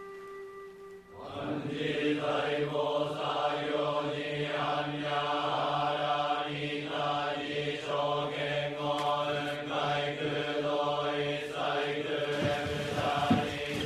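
Voices chanting a Buddhist sutra in unison, a low steady drone with a slow pulsing rhythm, starting about a second in as a struck bell's ring fades away. A few light knocks come near the end.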